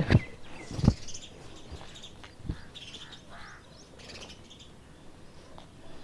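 Birds chirping faintly and scattered, with two soft thumps about a second and two and a half seconds in.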